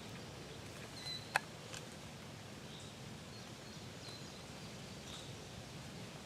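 Quiet woodland ambience with a steady background hiss and short, faint, high bird calls scattered through it. A single sharp click sounds about a second and a half in.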